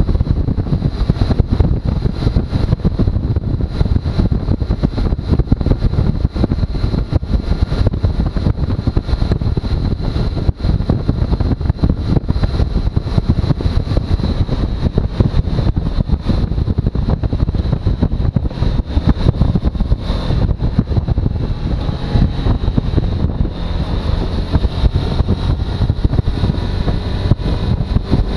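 Suzuki V-Strom motorcycle engine running steadily, a dense rapid pulsing with a thin high whine over it and some wind on the microphone.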